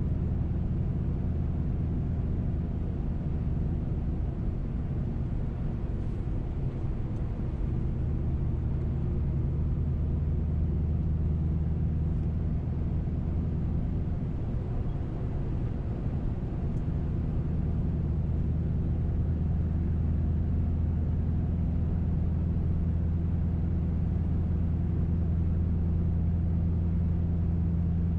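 Muffler-deleted 2005 Mercury Grand Marquis 4.6-litre V8 (cats into an H-pipe, no mufflers) cruising, heard from inside the cabin. It gives a steady low exhaust drone over road noise, shifting slightly in pitch partway through.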